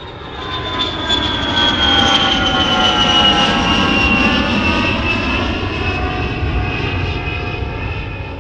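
Jet airliner engines running: a loud rumble under a whine of several tones that fall slowly and steadily in pitch, swelling over the first couple of seconds, then easing off.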